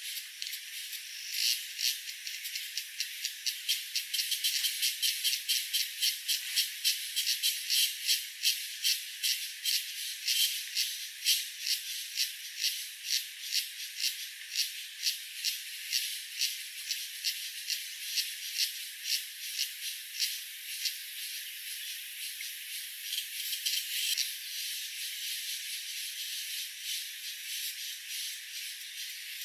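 Pulsing insect call: a steady run of dry, rattling pulses, two or three a second, that swells a few seconds in and eases off in the last third.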